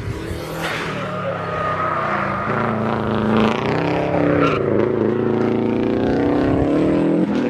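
Subaru Liberty RS Turbo's turbocharged flat-four engine pulling hard under load, its revs climbing. The revs dip briefly around the middle, climb again, then fall away sharply near the end as the throttle is lifted.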